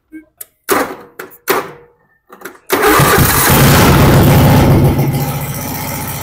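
Modified racing lawn mower's 18-horse engine with a stepped tuned exhaust, being started for the first time in a couple of years: it sputters briefly a few times, then fires up about three seconds in and runs loud and steady, settling somewhat quieter about two seconds later.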